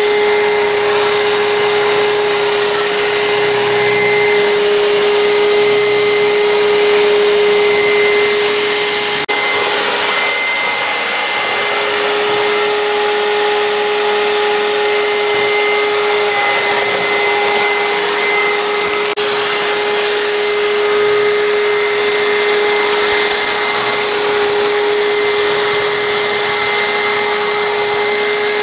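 Robot vacuum cleaner's suction motor running steadily: an even rushing noise with a constant whine, broken twice by abrupt cuts.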